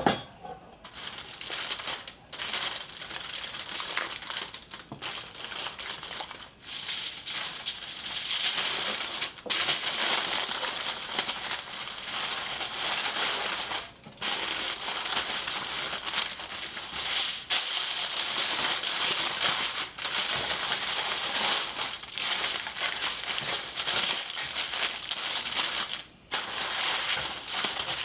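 Aluminium foil crinkling and rustling as it is folded and wrapped in several layers around a rack of ribs, with a few brief pauses.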